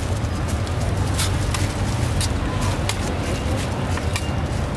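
Steady low rumble of street traffic, with scattered sharp light clicks and taps.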